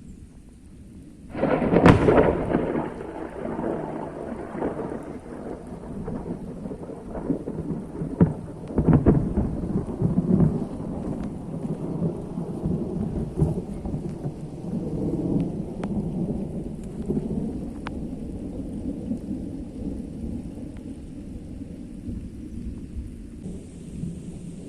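Thunder from lightning ground strikes over steady rain: a sudden loud crack about a second and a half in, then a long rolling rumble with more cracks around eight to nine seconds in. The uploader takes these strikes for positive lightning.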